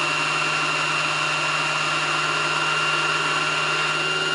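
Kenmore 18221 sewing machine's motor running at a steady speed with a steady whine, spinning the bobbin winder as it fills a bobbin with thread.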